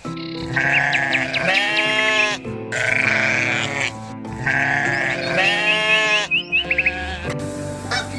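Sheep bleating, several long wavering bleats one after another, over background music.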